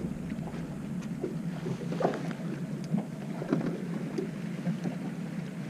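Steady wind and water noise aboard a small fishing boat at sea, with light scattered knocks and clicks.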